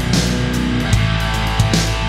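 Rock background music with guitar over a steady drum beat.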